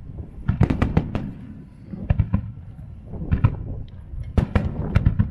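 Aerial firework shells bursting: several quick volleys of sharp bangs about a second apart, over a steady low rumble.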